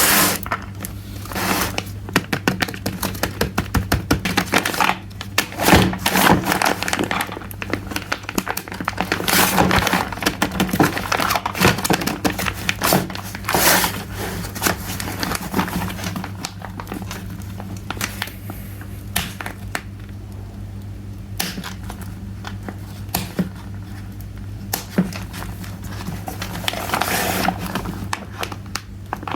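Plastic packaging crinkling and small plastic toy kitchen pieces clicking and tapping as they are handled and unboxed, with irregular clicks throughout. A steady low electrical hum runs underneath.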